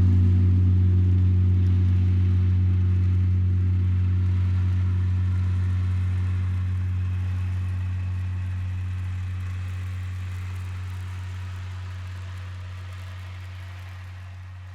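A deep instrument tone struck once at the start, then ringing on a steady low pitch with overtones and slowly fading away.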